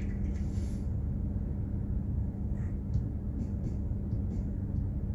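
Steady low rumble of a container ship under way, its engine and machinery running with a constant hum.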